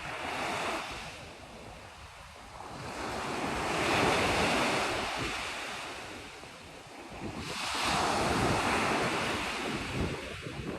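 Ocean waves washing onto a shore: a rushing surf hiss that swells and fades three times.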